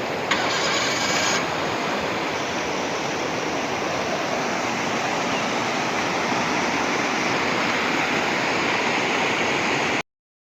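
Steady rushing of flowing water, like a stream or waterfall, with a brief brighter hiss about a third of a second in; it stops abruptly near the end.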